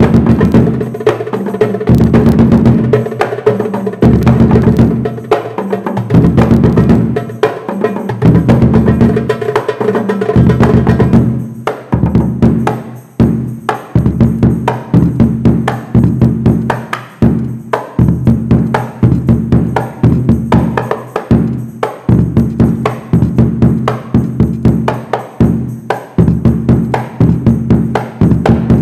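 Hadroh percussion played together for a sound check: a large hadroh bass drum with a plastic (mika) head struck with a felt mallet, giving deep pitched notes, under sharp hand strokes from a small tam and a darbuka. The drumming is dense and rolling for the first ten seconds or so, then settles into separate, evenly spaced strokes.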